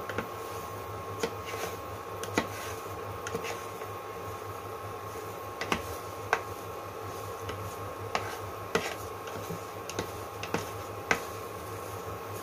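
Steady hum of an induction cooktop and its cooling fan, with scattered irregular clicks and taps of a plastic spatula against a rectangular egg pan as egg is pushed and folded.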